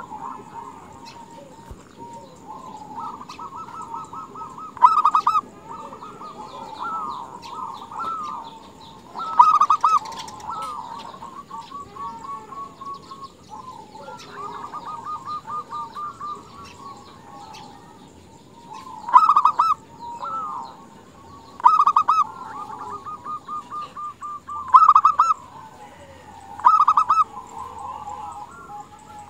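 Zebra doves (perkutut) cooing: runs of rapid, evenly pulsed coos at a steady pitch, broken by louder bursts of calling every few seconds. The calling is a female's call, meant to stir male perkutut into song.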